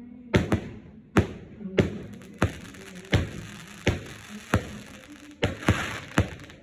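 Dragon's Gold of the Aztecs firework cake firing one shot after another, about ten sharp bangs at a steady pace of roughly one and a half a second. A hiss rises among the shots near the end.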